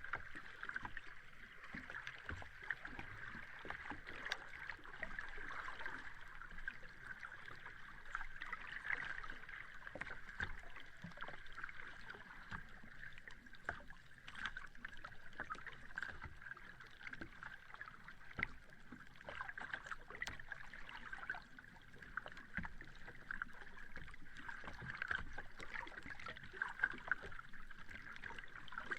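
Sea water washing at a beach: a steady hiss with many small crackles and no single large wave standing out.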